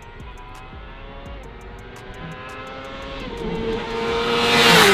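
Sport motorcycle approaching at high speed, its engine note climbing and growing louder, then passing close by at the very end with a sharp drop in pitch.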